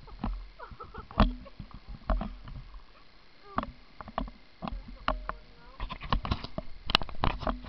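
Handling noise on a handheld camera: irregular knocks, clicks and rubbing as it is jostled against clothing, growing busier near the end with one sharp snap.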